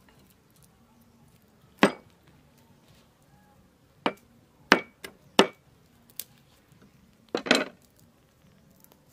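Meat cleaver chopping garlic cloves on a wooden board. There is a single chop about two seconds in, three quick chops around the middle with lighter taps between them, and a longer double knock near the end.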